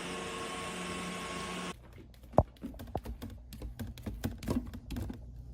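A steady hum that stops abruptly, followed by a run of irregular light clicks and taps, several a second.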